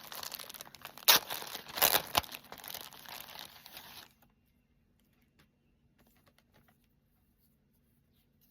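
Packaging wrap crinkling and rustling as a parcel is unwrapped by hand, with louder tearing rustles about one and two seconds in. It stops about four seconds in.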